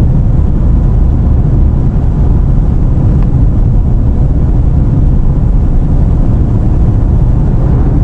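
Steady road and wind noise inside a car's cabin at highway speed, a loud, even low rumble.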